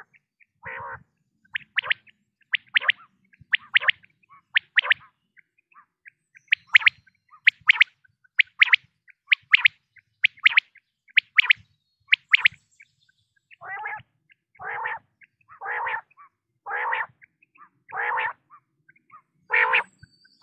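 Common quail calling: quick pairs of sharp, high whistled notes about once a second. In the last third they give way to six longer, lower, rougher notes about a second apart.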